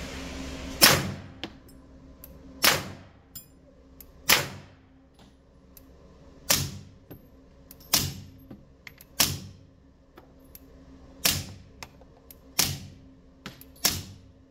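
Nine suppressed shots from an FN 509 9mm pistol, each a sharp crack with a short echo off the range walls, a second or two apart, with fainter clicks between them. The rounds are Hush 9mm ammunition fired in three groups of three: 115, then 147, then 165 grain.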